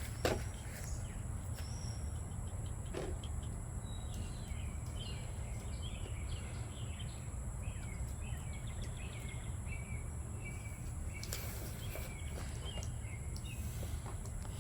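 Steady low outdoor background rumble, with a run of short bird chirps starting about four seconds in and a couple of faint clicks near the start.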